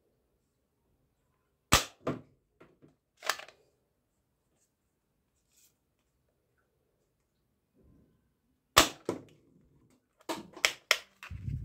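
Sharp plastic clicks and snaps from a yellow toy rifle being handled and its plastic mechanism worked: two quick clicks about two seconds in, another a second later, a pair near the nine-second mark and a fast run of clicks near the end.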